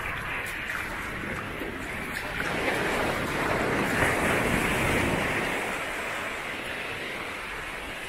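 Small Atlantic surf breaking and washing up a sandy beach in a steady hiss. The wash swells to its loudest about halfway through, then fades.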